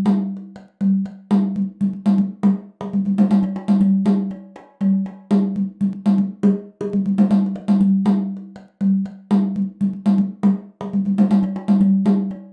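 Recorded percussion track playing back through a UAD 610-B tube preamp plugin for saturation: a steady rhythmic pattern of sharp drum hits, each with a ringing low note under it.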